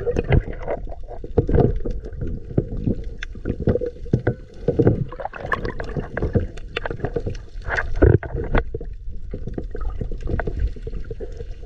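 Underwater sound picked up by a submerged camera: water rushing and bubbling, with many sharp clicks and knocks at irregular times, as a diver handles a pole spear and its rubber sling.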